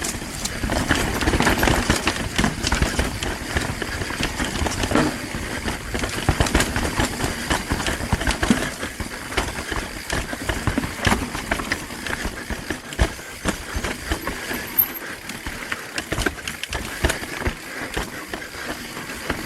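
Mountain bike riding downhill on a rough dirt and rock trail: tyres rolling over the ground with a constant rattle and many sharp knocks from the bike over roots and rocks.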